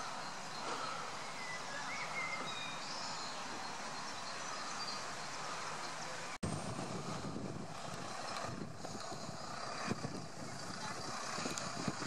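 Steady outdoor background noise of distant vehicle traffic, with faint chirps in the first few seconds. The sound drops out for an instant about six seconds in.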